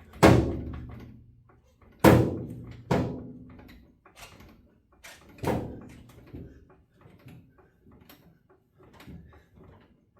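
Heavy metal clanks and thuds, four loud ones with a short ring after each, among lighter knocks and clicks as tools and equipment are handled.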